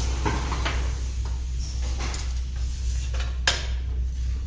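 Several knocks and clatters of wood or machine parts being handled, the loudest about three and a half seconds in, over a steady low hum of workshop machinery.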